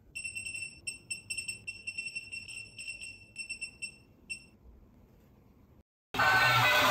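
Electric toy monkey run from a bench power supply, giving a fast, irregular string of short high-pitched ringing beeps that stop about four and a half seconds in. Loud background music starts near the end.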